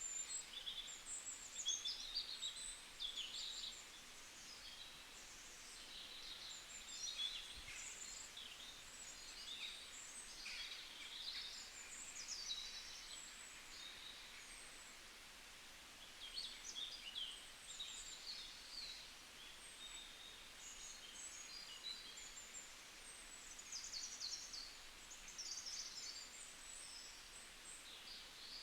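Several small birds chirping and twittering in quick, high-pitched, overlapping calls, with a couple of brief lulls, over a faint steady outdoor hiss.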